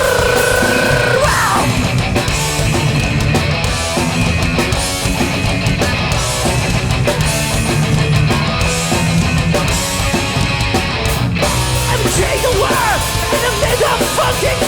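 Hardcore punk band playing live at full volume, with distorted electric guitars, bass and drums.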